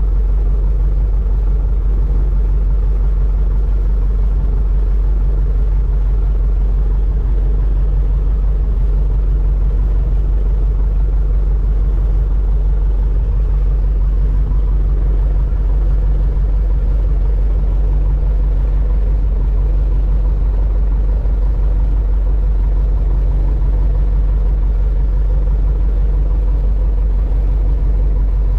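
Light floatplane's piston engine and propeller running steadily, heard from inside the cabin as a loud, even, low drone while the plane taxis on the water.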